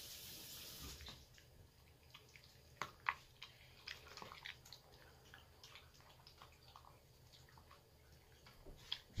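Small dog eating wet, water-softened food from a plastic bowl: scattered soft wet clicks of chewing and licking, with a couple of louder ones about three seconds in. A steady hiss fills the first second.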